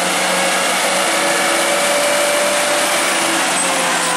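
Diesel engine of a loaded goods truck running as the truck drives past close by, a steady loud drone with engine tones over road and engine noise.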